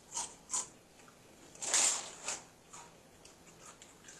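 Eating noises: a handful of short crunching and smacking sounds from chewing nachos and chips. The loudest is a longer crunch a little under two seconds in, followed by smaller ones.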